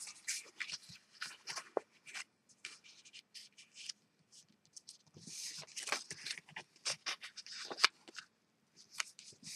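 Patterned paper and cardstock being handled and folded by hand along scored lines: scattered light crinkles, rustles and taps, with a denser stretch of rustling about halfway through.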